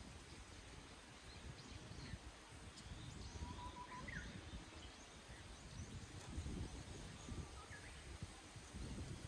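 Quiet hillside ambience: uneven low wind rumble on the microphone, with a few faint short bird chirps and whistles scattered through it.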